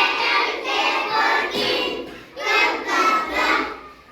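A group of children chanting phonics words and letter sounds in unison, in rhythmic syllables.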